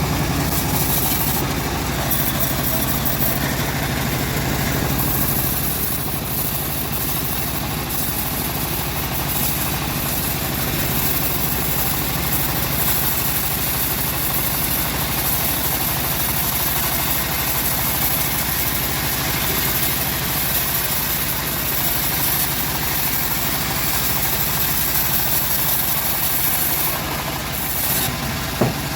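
Homemade bandsaw sawmill's engine running steadily, with a sharp click near the end.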